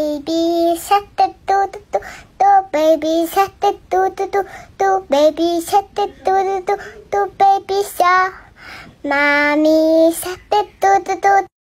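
High, childlike voice singing a quick tune of many short, clipped notes, with a longer held note about nine seconds in.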